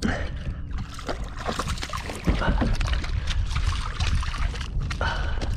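Water lapping and slapping against a fishing kayak's hull, over a steady low wind rumble on the microphone, with scattered small knocks and splashes.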